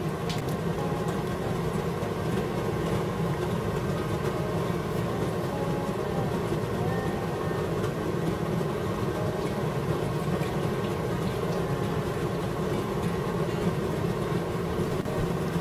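Steady hum with a fine crackle from a frying pan of jjajang sauce heating on an induction cooktop.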